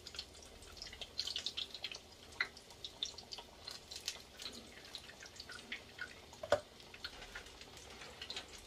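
Scattered small clicks and soft scrapes of a spoon and hands working chicken filling onto a flour tortilla, with one sharper click about six and a half seconds in.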